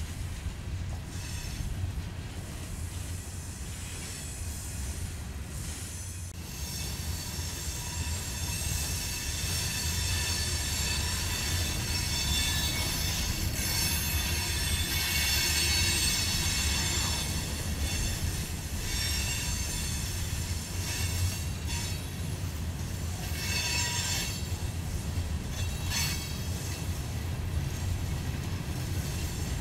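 Empty rock hopper cars of a freight train rolling past: a steady low rumble of wheels on rail with high-pitched wheel squeal over it. The squeal is strongest in the middle and returns in two short bursts near the end.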